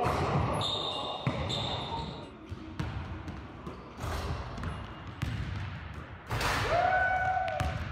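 Basketballs bouncing on a hardwood gym floor during dunks, sharp knocks every second or so, with voices of people in the gym. About six and a half seconds in, a voice holds a long cry that falls in pitch at its end.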